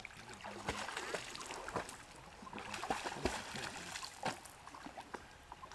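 A dog splashing about in shallow lake water: a run of irregular splashes and slaps of water.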